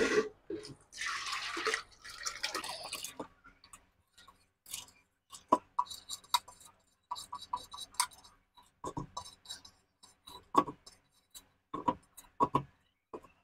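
Soaked urad dal being tipped from a steel saucepan into a plastic blender jar: a short rush of sliding wet lentils about a second in, then scattered clicks and taps as the grains and a little water drop into the jar.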